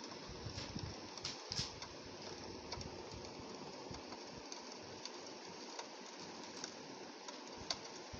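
Rain falling on a window: a steady hiss of rain with many scattered light ticks of drops striking the glass.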